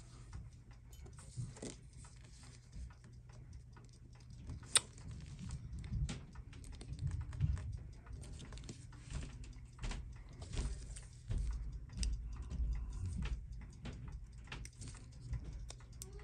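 Small clicks and taps of fingers and tools on a watch movement clamped in a metal movement holder, while the hands are being pulled off the dial, with one sharp click about five seconds in. Dull low rubbing and bumps of handling run underneath.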